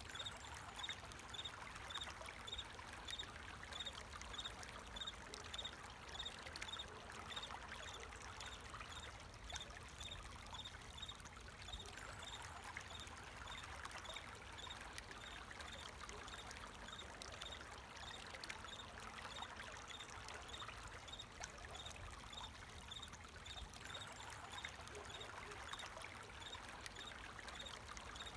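Water flowing and trickling steadily, with a cricket chirping in an even, rapid pulse over it, clearest at the start and near the end.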